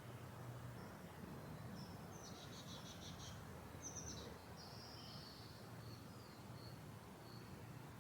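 Faint small-bird chirps and a short rapid trill, then a run of brief high notes repeating about twice a second, over a steady low background hum of suburban ambient noise.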